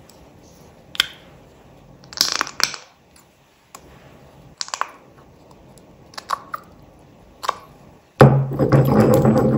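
Scattered small clicks and crackles of plastic glitter glue tubes being squeezed and tapped into a stone mortar. Near the end a loud, steady, low drone starts abruptly.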